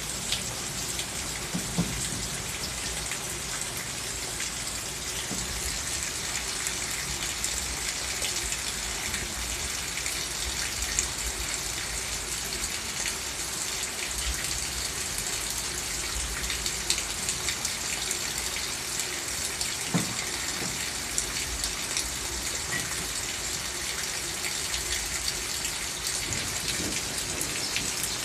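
Heavy rain falling steadily, a constant hiss dotted with the ticks of single drops.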